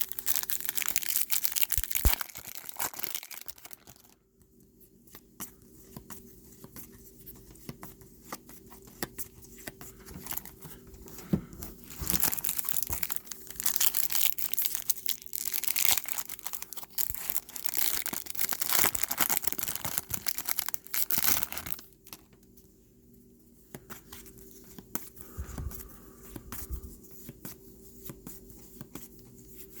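Foil trading card pack wrappers being torn open and crinkled, in spells: one at the start and a longer one past the middle, with quieter handling of the packs between.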